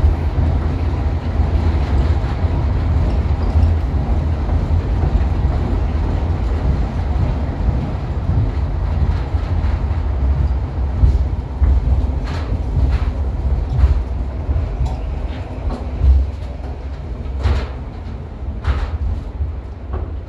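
Cable-pulled rail people mover running along its guideway: a steady low rumble, with sharp clicks from about halfway through, and the sound easing off near the end as it comes into the station.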